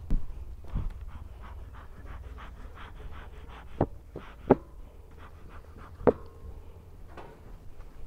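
Wooden knocks as blocks are handled on a wooden hive lid, three sharp ones loudest, over a quick rhythmic rustle and a low wind rumble on the microphone.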